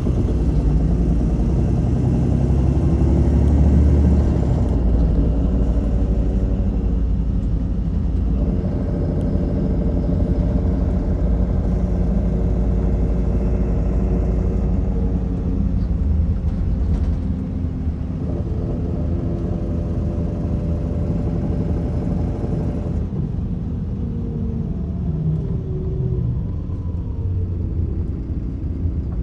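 MAN Lion's City LE city bus driving, its diesel engine and ZF Ecolife automatic gearbox heard from inside the cabin over steady road rumble. The engine note shifts several times.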